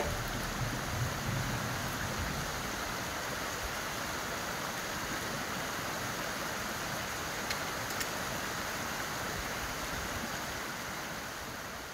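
Steady rush of water from a small woodland waterfall, fading out near the end.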